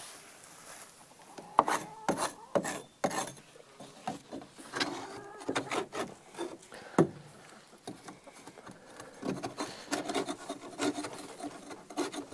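Old straw bedding being scraped and pulled out of wooden chicken nest boxes: irregular scraping and rubbing against wood, with a few sharp knocks.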